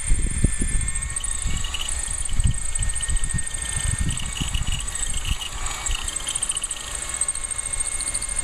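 Wind buffeting the microphone in irregular gusts, with high, rapid chirping trills running over it.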